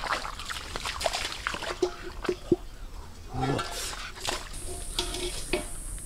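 Repeated splashes and sloshing in shallow muddy water from bare feet and hands moving through it, with a short rising call about three and a half seconds in.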